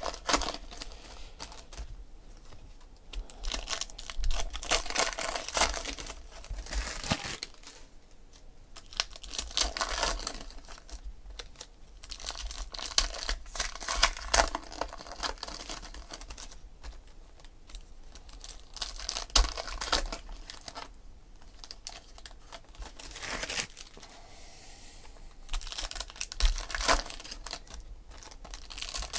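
Foil trading-card pack wrappers (2016 Panini Select Football) being torn open and crumpled by hand, crinkling and tearing in irregular bursts, with the cards handled in between.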